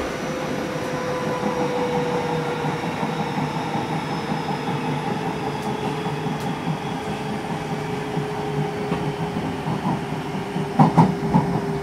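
Unrenovated Odakyu 8000 series field-chopper electric train running, heard from inside the car: steady rumble with a whine that slowly falls in pitch. A few loud clacks of the wheels come near the end.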